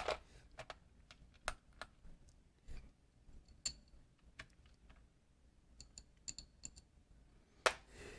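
Scattered light clicks and small metallic clinks at irregular intervals, from hands handling things at the machine. A few clinks ring briefly, in a cluster of quick taps a little after the middle.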